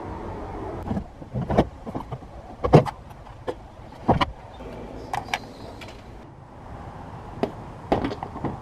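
Irregular sharp knocks and clicks of hands working on a car's plastic trim and wiring, about nine short taps spread over several seconds, the loudest near three seconds in.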